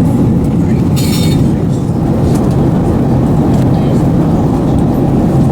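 Steady low rumble inside an Airbus A380's passenger cabin in cruise: airflow and Rolls-Royce Trent 900 engine noise. A brief rustle comes about a second in.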